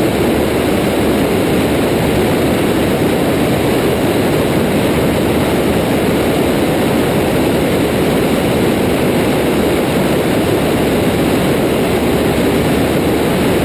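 Cessna 172's single piston engine and propeller droning steadily in flight, mixed with the rush of air past the airframe.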